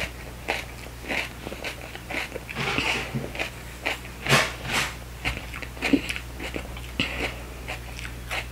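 A person biting into and chewing a raw jalapeño pepper with short, crisp crunches, irregular at about two a second.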